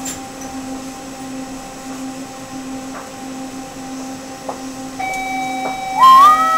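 Detroit People Mover train's linear induction motor propulsion humming steadily, then about five seconds in a whine starts and steps up in pitch as the train accelerates away from the station.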